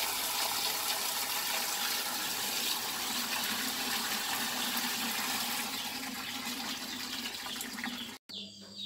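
Tap water pouring steadily into a plastic basin full of mangoes as they are washed by hand. It stops abruptly near the end.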